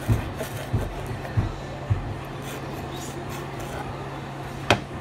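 Table knife chopping green stalks on a white nonstick frying pan: about four dull knocks of the blade on the pan in the first two seconds, then a sharper click near the end, over a low steady hum.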